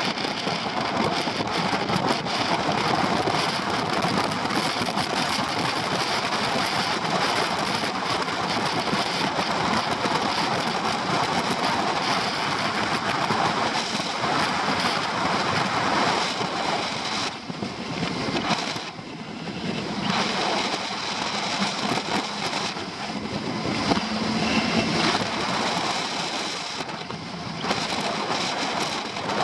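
Wind and road rush on a motorcycle-mounted camera at riding speed, with a Honda Pan-European ST1100's V4 engine running faintly underneath. The rush eases briefly twice in the second half.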